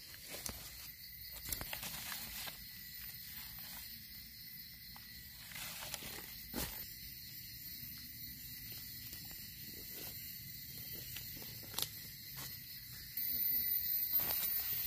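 Steady high-pitched drone of forest insects, with scattered clicks and rustles of dry leaves and twigs as hands and a knife dig a mushroom out of the leaf litter. A louder, higher insect buzz joins near the end.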